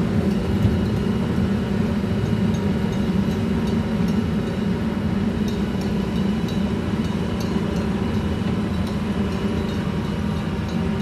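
Tracked hydraulic excavator travelling on its steel tracks: a steady diesel engine drone with light, irregular clanks from the track links.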